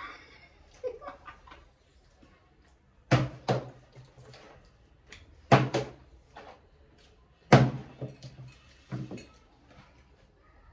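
Plastic water bottle flipped onto a table, landing four times with sharp thuds; the second landing is a quick double knock.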